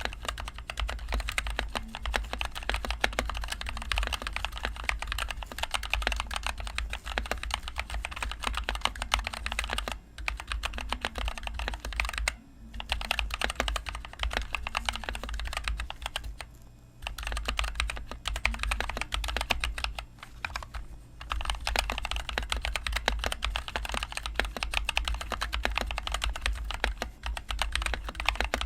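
Continuous typing on a stock NovelKeys NK65 Entry Edition mechanical keyboard with NovelKeys Cream linear switches and HyperX Pudding keycaps: a dense, rapid stream of keystrokes with a few brief pauses along the way.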